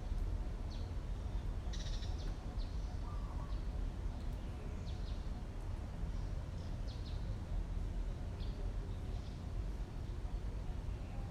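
Short high-pitched animal chirps, about ten of them at irregular intervals, over a steady low outdoor rumble.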